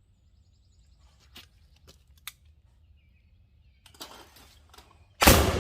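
A few light clicks, then near the end a single loud shot from a Pedersoli 12-gauge double-barrel percussion muzzleloading shotgun firing a Pyrodex load, with a long rolling echo.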